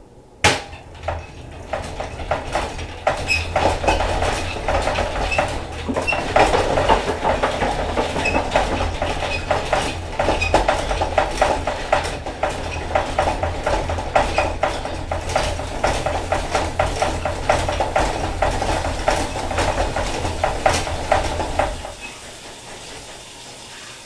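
Honey extractor spinning frames: a steady mechanical rumble with constant rattling and clatter. It starts with a sharp knock and stops abruptly about two seconds before the end.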